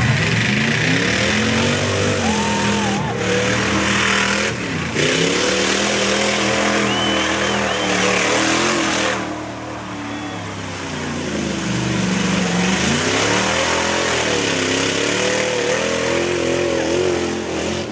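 Chevy pickup's engine revving hard through a mud pit, its pitch climbing and falling again and again as the throttle is worked. It eases off for a few seconds past the middle, then revs up again.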